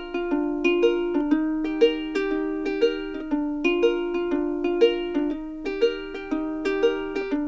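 Background music: a light plucked-string tune, note after note at an even pace.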